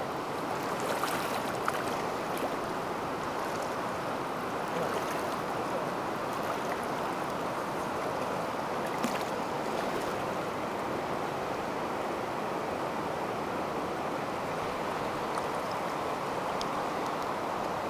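Steady rushing of a shallow, fast-flowing river running over rocky riffles around wading anglers, with a few faint ticks.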